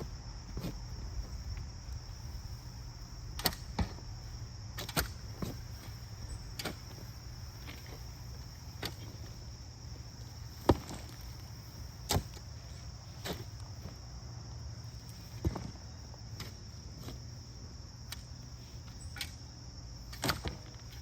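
Irregular sharp knocks of digging tools striking soil and roots, roughly one every second or so, the loudest about halfway through. Under them, a steady high insect drone from crickets.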